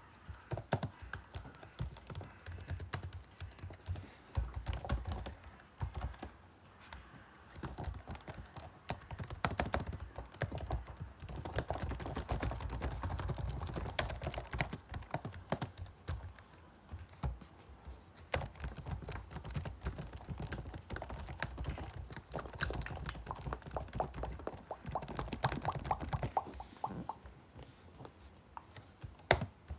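Typing on a computer keyboard: rapid, irregular key clicks and key-bottoming taps, coming in flurries with short pauses.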